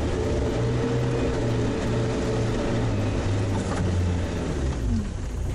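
All-terrain vehicle's engine running steadily, with its pitch dropping a little near the end.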